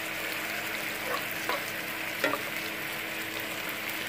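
Sliced onions sizzling in hot oil in a nonstick kadhai while a spatula stirs them, softening but not yet browning. A few light knocks of the spatula against the pan come through, the loudest a little past two seconds in.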